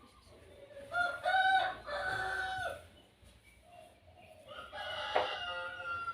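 A rooster crowing twice: one crow about a second in lasting roughly two seconds, then a second crow starting near the end.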